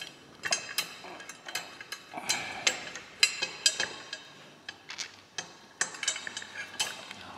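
Small metal parts clinking and tapping together as a spacer and bolt are worked into place on a motorcycle engine crash-bar bracket: irregular sharp clinks, roughly two a second, each with a brief metallic ring.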